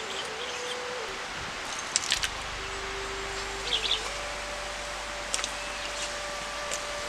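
Green chillies frying in hot oil in a clay pot: a steady sizzle with a few sharp crackles and pops. Under it runs a soft held tone that steps in pitch a few times.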